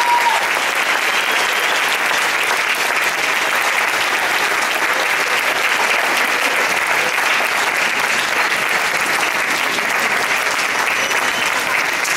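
Audience applauding steadily, the sustained clapping of a full house at the end of a performance.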